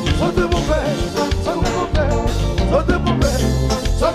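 A live konpa (Haitian compas) band playing: a steady bass line and regular drum strokes under guitars, with a male singer's voice.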